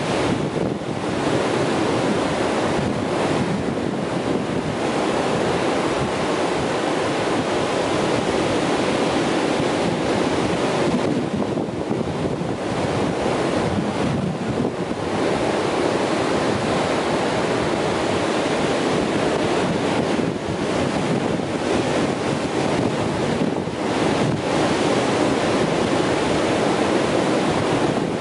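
Ocean surf: waves breaking offshore and washing up the sand in a steady, continuous rush that swells and eases slightly.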